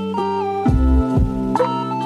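Instrumental background music with plucked string notes over a bass line, notes changing about twice a second.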